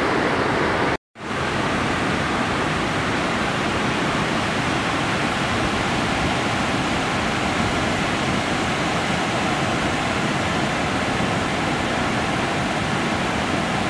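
Swollen, muddy floodwater of a river rushing over rocks and rapids, a steady loud rush of water. The sound cuts out for a moment about a second in, then carries on.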